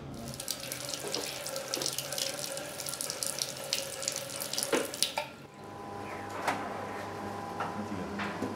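Water running from a tap into a ceramic washbasin, splashing steadily, cut off suddenly about five and a half seconds in. After that comes a quieter steady hum with a few light clinks.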